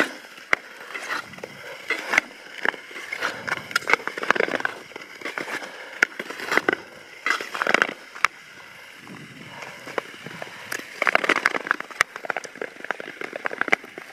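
Long-distance ice skates scraping and crackling over frost-covered natural lake ice, in irregular strokes with sharp clicks between them. The strokes ease to a quieter steady glide from about eight seconds in, then pick up again near the end.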